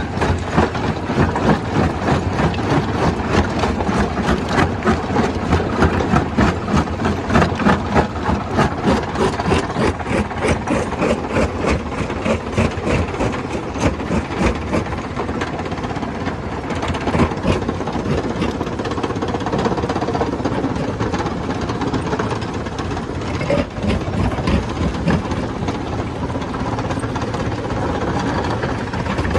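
Stone crusher running under load, with a heavy mechanical rumble and a rapid, rhythmic knocking as rock is broken. The knocking evens out into a steadier grinding about halfway through and picks up again near the end.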